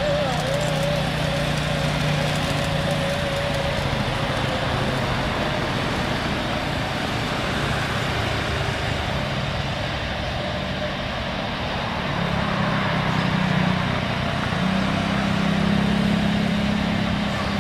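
Twin-engine wide-body jet airliner's engines at takeoff thrust as it lifts off and climbs away: a steady jet roar whose low rumble grows louder in the second half.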